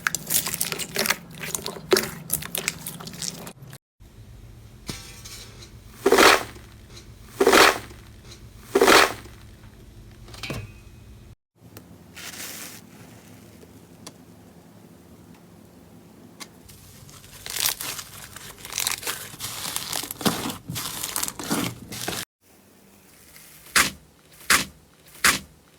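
Slime being pressed, poked and worked by hand close to the microphone, in a run of short clips: crackling, crinkling crunches, with three loud strokes about a second and a half apart in the second clip and a quick run of sharp ones near the end.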